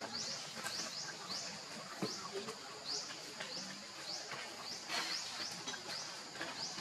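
A long series of short, high chirps, each rising in pitch, about two a second, over a steady hiss of outdoor background, with a few faint clicks.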